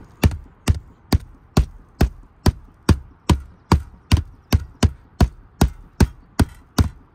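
Rubber mallet knocking on an asphalt-shingle roof deck, a steady run of dull blows a little over two a second. The roof is being sounded out to find a rafter beneath the shingles by the change in the knock.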